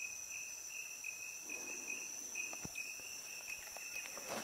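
Forest insect chorus: one insect gives a steady high-pitched shrill while another chirps in short repeated pulses. A few faint clicks and a brief rustle sound over it.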